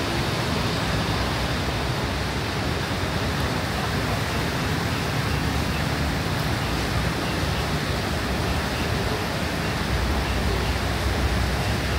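Heavy rain pouring down as a steady, unbroken hiss, with a low rumble underneath.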